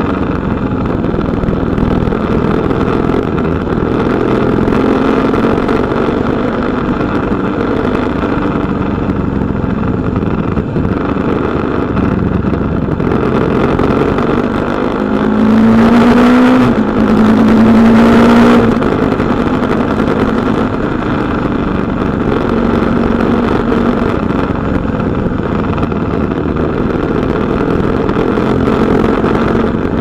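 KTM Duke 250's single-cylinder four-stroke engine running on the move, close to the exhaust, over steady wind and road noise. About halfway through it revs up hard twice in quick succession, with a brief drop in pitch between, as the bike accelerates through a gear change.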